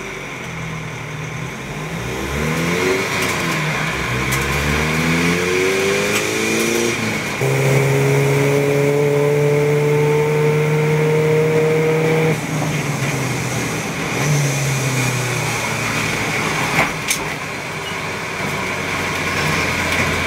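Golf race car's VW CUAA TDI diesel engine heard from inside the cockpit. It pulls away and accelerates up through the gears, its pitch climbing with short breaks at each shift, then holds steady at speed. About twelve seconds in it drops suddenly as the driver lifts off, and it runs on at lower revs.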